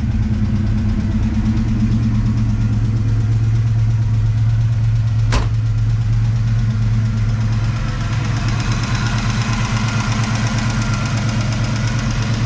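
Ford 5.0L (302) small-block V8 with Trick Flow Track Max cam, long-tube headers and Flowmaster mufflers idling steadily through true dual exhaust. A single sharp click sounds about five seconds in, and from about eight seconds a higher whirring hiss joins as the microphone nears the open engine bay.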